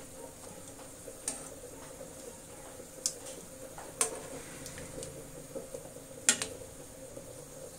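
Stainless-steel kitchen tongs clicking against a nonstick wok while lifting blanched yardlong beans out of hot water: four sharp metallic clicks, one to two seconds apart, the last the loudest.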